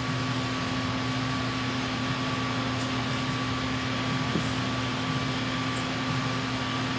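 Steady background hum and hiss, unchanging throughout, with no other sound.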